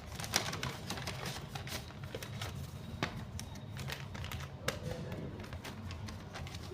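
Irregular light clicks and rustles of a handmade paper blind bag and the small items in it being handled and unwrapped.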